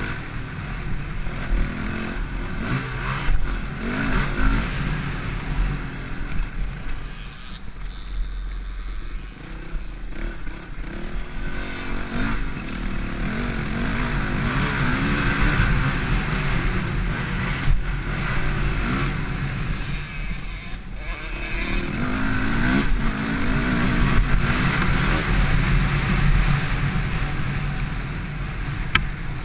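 Dirt bike engine running hard on a trail ride, revving up and down with the throttle throughout.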